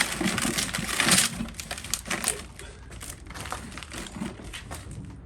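Crunching, rustling clatter of loose material being handled, dense for about the first second and a half, then thinning to scattered clicks and scrapes.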